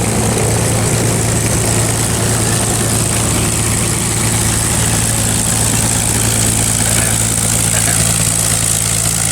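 P-51 Mustang's V12 piston engine idling steadily, a low, even drone.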